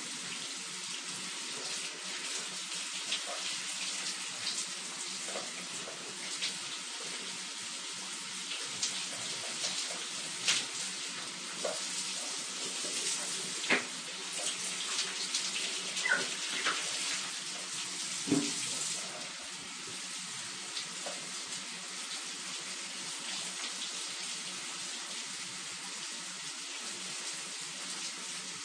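Shower running: a steady hiss of falling water spray, broken by a few brief louder sounds in the middle stretch.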